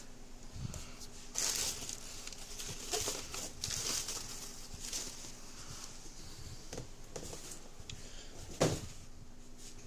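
Crumpled newspaper packing crinkling and rustling in a cardboard box as hands dig through it, in several bursts, with one sharp thump about three-quarters of the way through.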